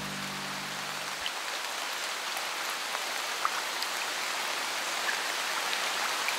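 Steady rain falling, a soft even hiss with scattered drops ticking. A music track's low sustained notes end about a second in.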